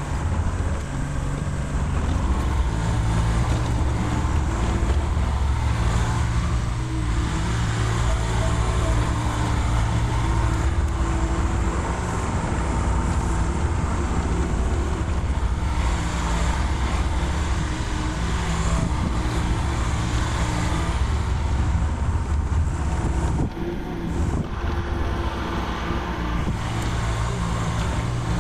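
Mini excavator's diesel engine running under load, its engine note rising and falling in steps as the hydraulics work the boom and the machine tracks around.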